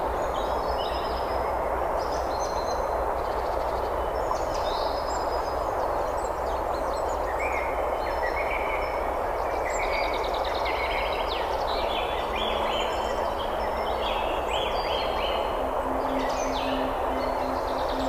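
Small forest stream cascading over rocks, rushing steadily, with songbirds chirping and calling above it, the calls busier in the second half.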